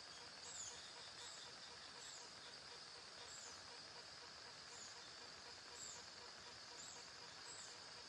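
Faint forest ambience: a steady high insect drone, with a short high chirp repeating roughly once a second.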